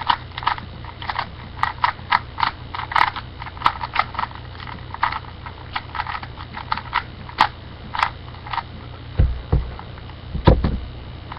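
Rubik's Cube faces being turned by hand, the plastic layers clicking and clacking irregularly a few times a second, as in scrambling or turning the cube. A couple of dull low knocks come near the end.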